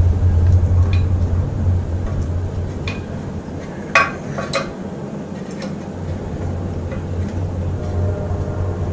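Light metal clinks and clicks from small tool parts being handled and fitted together, the loudest about four seconds in and a second one just after. A steady low hum runs underneath.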